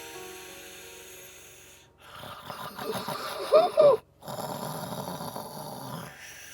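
A man snoring. A rasping snore about two seconds in ends in a pitched snort, the loudest sound here, and after a short break a second long rasping snore follows.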